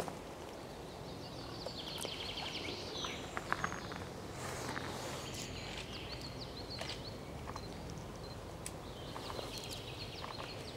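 Wild boar rooting and stepping on the forest floor, scattered rustles and clicks, over steady low background noise. Songbirds chirp throughout, with a rapid trill about two seconds in.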